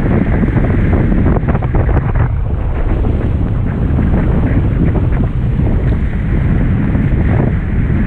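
Heavy wind buffeting the microphone, a steady low rumble, over water rushing past the hulls of a Hobie 16 catamaran under sail; a few short splashes of water against the hulls come a second or two in and again near the end.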